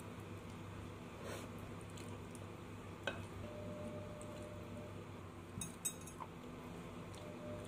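Quiet eating at a table: a wooden spoon clicking lightly against a ceramic bowl once about three seconds in and a few times near the end, over a steady low room hum.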